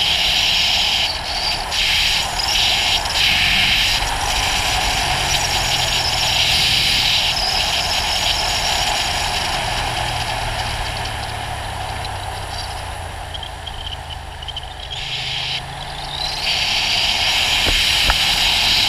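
Ducati GT1000's air-cooled L-twin engine running while the motorcycle is ridden, under a loud steady hiss of wind and road noise. The engine eases off and everything quietens for a few seconds past the middle, then picks up again near the end.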